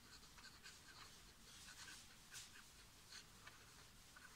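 Pen writing on paper: faint, short scratching strokes as numbers and an equation are written out.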